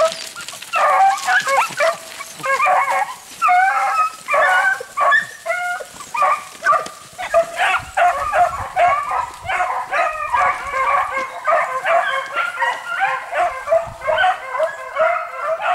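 A pack of beagles baying in chorus: many overlapping short yelping calls, several a second without a break. The hounds are in full cry, giving voice as they run a hare's scent trail.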